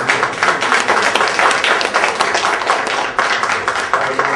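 A small group of people applauding, a steady dense patter of hand claps.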